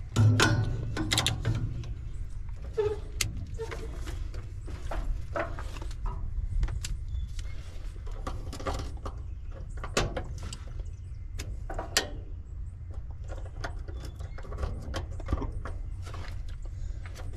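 Hands and a tool working the wires and connectors inside an air-conditioner condenser's control box: scattered clicks, taps and small rattles, with a louder knock right at the start, over a low steady rumble.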